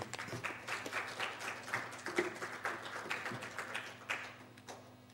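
Audience applauding: a dense patter of many hands clapping that thins toward the end and cuts off suddenly.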